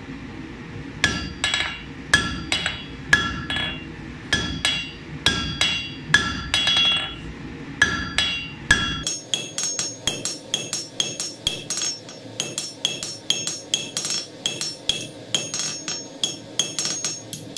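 Hand hammer striking a red-hot steel bar on an anvil, each blow ringing with a bright metallic tone. This is the smith drawing out the bar to isolate material for the hammer pendant's handle. The blows are spaced about a second apart, often in pairs, at first; from about nine seconds in they become a faster, steady run of roughly three a second.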